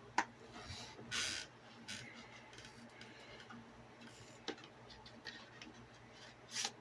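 A plastic disc case being handled: a few sharp clicks and a short scraping rustle about a second in.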